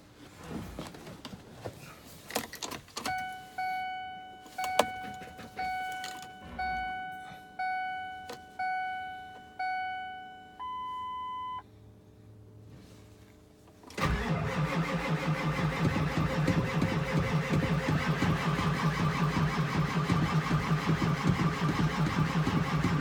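Truck dashboard chime sounding eight evenly spaced bongs and then one steady beep while the key is on. The 7.3L Power Stroke V8 turbo diesel of a 2001 Ford F-350 then fires suddenly and runs steadily at idle. This is a cold start after the glow plugs have been cycled.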